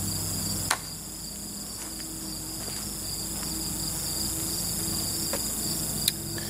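Crickets chirping steadily over a low, steady hum, with a sharp click about a second in and another near the end.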